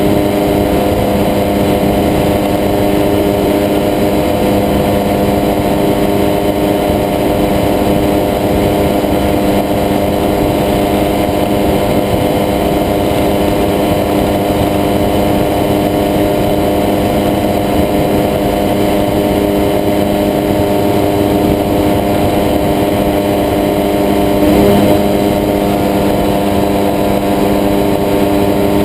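Weight-shift microlight trike's engine and propeller running steadily in cruise flight, heard from on board as an unchanging drone.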